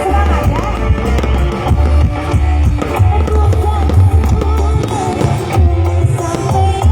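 Loud music with a heavy, pulsing bass beat and a melody line over it.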